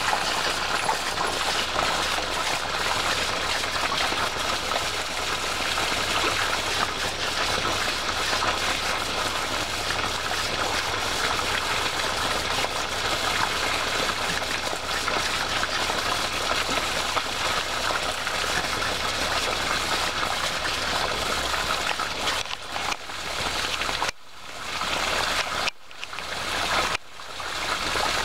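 Steady rushing hiss of water running from a garden hosepipe. It cuts out briefly three or four times near the end.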